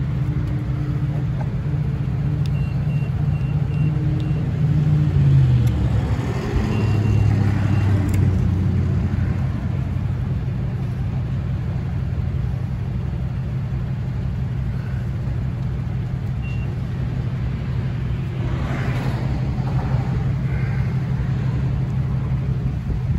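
A vehicle engine running steadily, its pitch dropping about five seconds in. A few short high electronic beeps from the gas pump sound over it.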